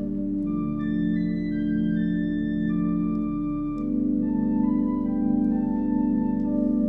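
Allen digital organ playing a slow hymn-tune arrangement: sustained chords with a higher melody moving note by note above them. The chords change about half a second in and again near four seconds in.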